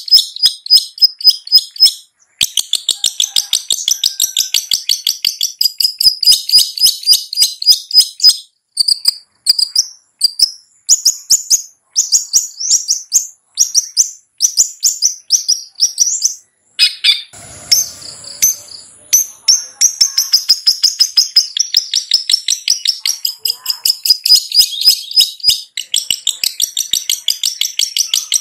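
Long-tailed shrike (cendet) singing vigorously: a fast, continuous chatter of rapid high-pitched notes in long trains with brief breaks. Around two-thirds of the way through, a short rougher stretch with a thin steady whistle interrupts the chatter.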